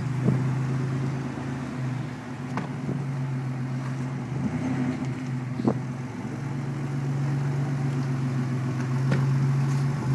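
GMC Syclone's turbocharged 4.3-litre V6 running as the truck drives off at low speed, a steady engine note that swells slightly near the end. A few faint clicks sound over it.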